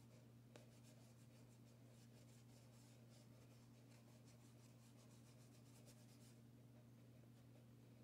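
Faint scratching of a chalk pastel stick rubbed on paper in quick short strokes, with a light tap about half a second in; the strokes stop about six seconds in. A steady low hum lies under it.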